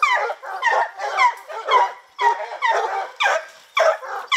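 Hunting hounds barking in a rapid string of sharp yelps, each falling in pitch, about two a second.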